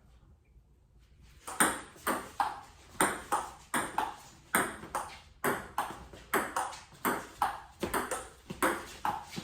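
Table tennis ball being hit back and forth in a fast rally, sharp ticks of the ball on paddles and table about two or three times a second. The rally starts about a second and a half in.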